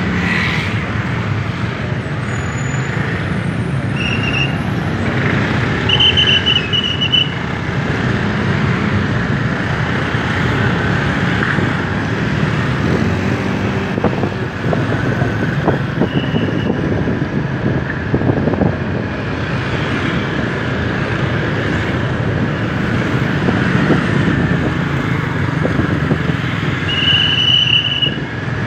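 Steady road noise of a Honda motor scooter riding through town traffic. A few brief high-pitched tones, about a second each, sound now and then, with the longest near the end.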